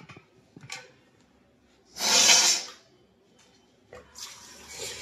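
A single loud, hissing blast of breath through the nose about two seconds in, lasting under a second. A tap starts running about four seconds in.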